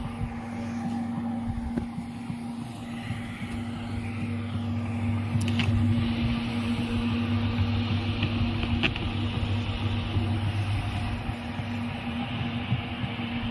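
Carpet-cleaning machine's electric motor running with a steady low hum. A couple of faint clicks sound partway through.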